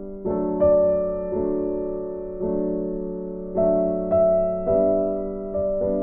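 Background piano music: chords struck every second or so, each ringing and fading before the next.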